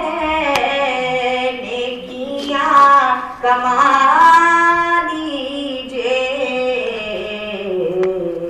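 A man's voice singing an Urdu naat unaccompanied, drawing out long melismatic notes without words that glide up and down. The line climbs to its loudest, highest notes about three to four seconds in, then sinks lower toward the end.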